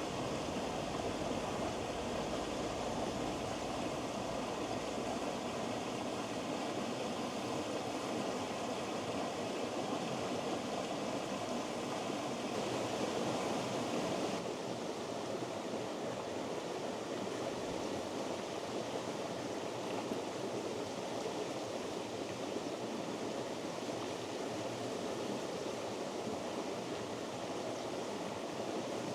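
Steady rushing of a rocky upland river, its water pouring over a waterfall into a pool. The sound changes slightly about halfway through.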